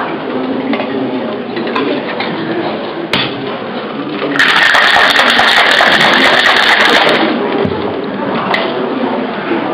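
Cocktail shaker shaken hard for about three seconds, starting a little over four seconds in, giving a loud hissing rattle.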